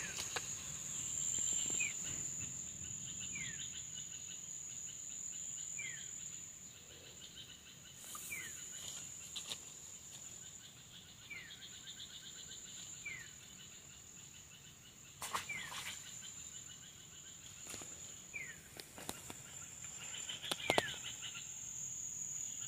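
Steady high insect buzzing from crickets or cicadas, with a bird repeating a short falling whistle every two seconds or so. A few sharp clicks come in among them.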